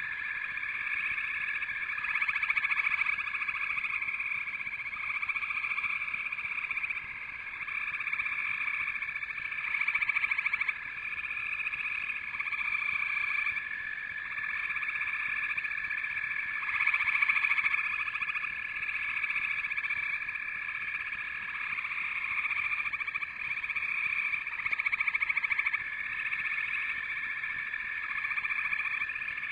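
A dense, steady chorus of many calling animals, high in pitch, swelling and fading every few seconds.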